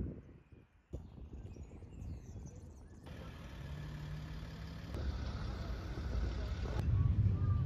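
Outdoor ambience dominated by a low rumble of road vehicles, changing abruptly twice and growing louder near the end.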